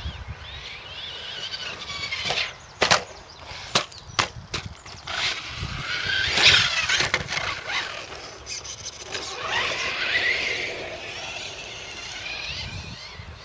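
Electric 1/8-scale Losi 8ight RC car's Tenshock X812L brushless motor and drivetrain whining up and down in pitch as it accelerates and slows over rough ground. Several sharp knocks come between about two and five seconds in.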